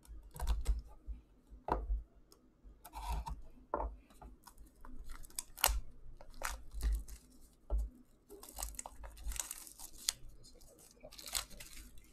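Plastic shrink wrap being slit and torn off a box of trading cards, crinkling in short bursts a few seconds apart, among scattered clicks and taps of the cardboard box being handled.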